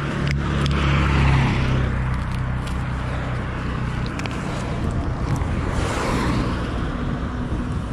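Road traffic: a motor vehicle's engine runs steadily nearby, louder for the first second or so, while cars pass by about a second in and again around six seconds in.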